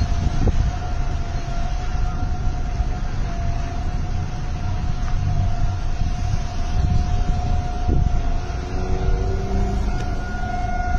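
Outdoor civil-defense warning siren sounding a long steady wail, the alert given for a tornado. Wind buffets the microphone with a low rumble underneath.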